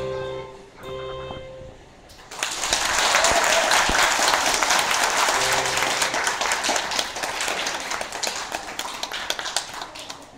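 The last notes of the dance music, then an audience clapping and applauding from about two seconds in, the applause slowly dying down near the end.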